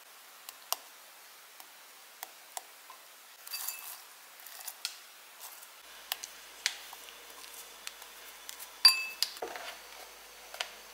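Light kitchen handling sounds from a ceramic bowl and utensils: scattered small clicks and taps, a brief rustle a little past three seconds in, and a sharp ringing clink about nine seconds in, the loudest sound.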